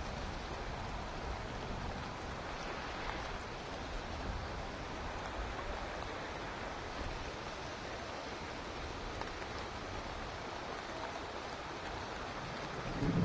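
Steady rain falling after a heavy downpour, an even hiss with no break.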